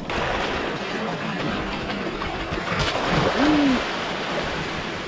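Sea surf washing steadily against rocks on the shoreline, with a short shout from one of the anglers about three and a half seconds in.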